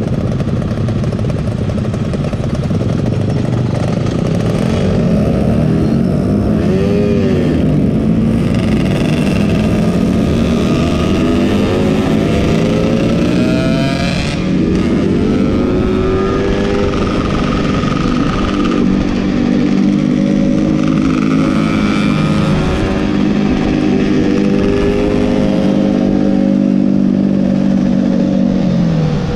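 Yamaha F1ZR's two-stroke single-cylinder engine heard while riding, its pitch climbing in sweeps as it is shifted up through its road-race gear ratios, then holding fairly steady at speed and dropping near the end.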